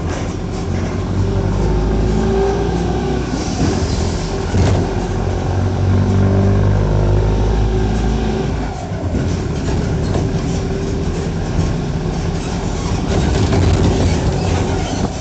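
Mercedes-Benz OF-1418 bus's six-cylinder turbo-diesel engine and exhaust pulling under load, its pitch rising twice as it works up through the gears, with a shift about four and a half seconds in. About eight and a half seconds in it eases off and runs on more evenly.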